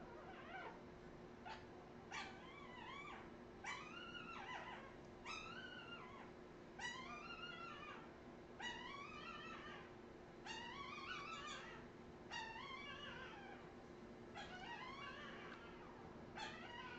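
Newborn Australian terrier puppy crying: a string of short, high squealing calls, each rising and falling in pitch, about one every second and a half, over a faint steady hum.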